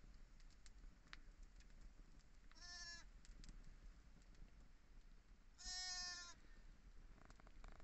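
Sheep bleating faintly, two calls: one about two and a half seconds in and a slightly louder one near the six-second mark, with a few faint clicks between.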